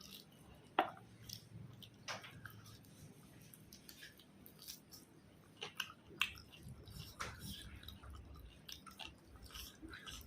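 A person chewing food close to the microphone: faint, irregular wet smacks and soft clicks from the mouth, one or two a second.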